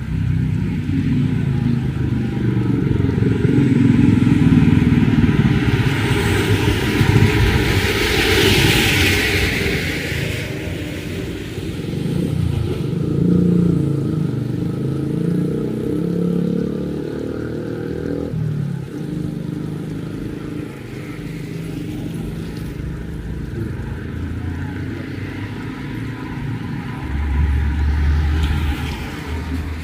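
Motor vehicle engines running and passing at close range, their pitch rising and falling, with a louder hiss that swells and fades about six to ten seconds in.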